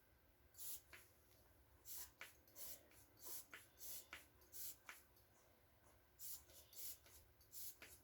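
A spray bottle's pump pressed over and over, about fifteen short faint hissy clicks at an irregular pace with a pause partway through. The nozzle is still turned shut, so nothing sprays out.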